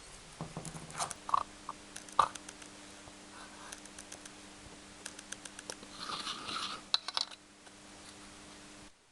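Workshop handling noises from engine rebuild work: irregular clicks, taps and light scrapes of tools and parts, busiest about six to seven seconds in. Under them runs a steady low hum that starts about a second in and cuts off near the end.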